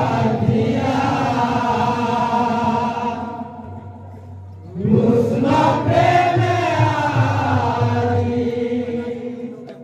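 A group of men chanting a devotional kirtan together in long held phrases, with a quieter dip between two phrases about three and a half seconds in.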